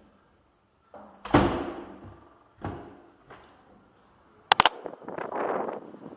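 Metal-framed glass door being worked and pushed open: a heavy knock that rings on, two lighter knocks, then a rapid triple clack of the latch about halfway through, followed by about a second of rushing noise as the door swings open.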